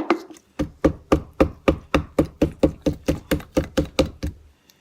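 Slime being swirled and stirred in a container: a quick, regular run of short strokes, about four a second, that stops shortly before the end.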